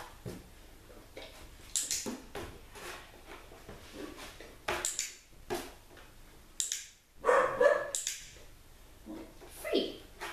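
Australian Shepherd puppy barking: a string of short, separate barks at irregular intervals, the loudest about three quarters of the way through.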